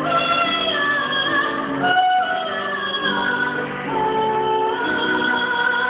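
A woman singing a musical-theatre song in a high, operatic style, holding long notes that slide between pitches, over instrumental accompaniment.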